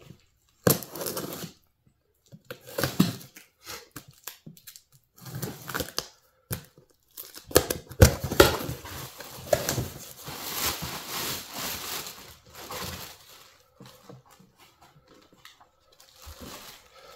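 A cardboard shipping box being opened by hand: packing tape slit and torn, cardboard flaps scraping, then plastic wrapping crinkling as the battery inside is lifted out. Irregular rips and rustles with short pauses between them.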